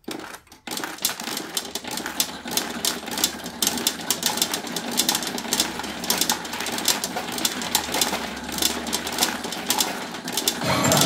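Steel pachinko balls clattering in a Takeo CR Kaiji pachinko machine, a dense, rapid run of clicks starting about a second in.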